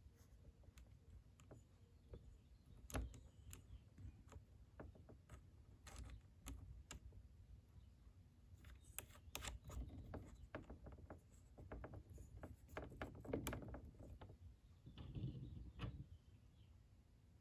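Faint, scattered clicks and taps of small metal nuts and parts being handled and threaded by hand onto a metal RC buggy shock tower.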